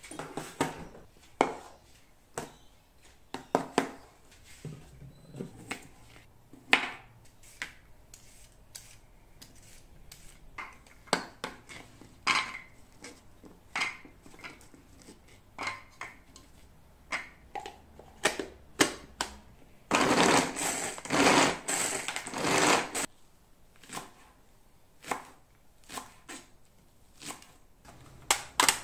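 Chef's knife chopping carrot and green onion on a plastic cutting board: irregular sharp knocks, with a busier stretch of rapid noise lasting about three seconds about two-thirds of the way through.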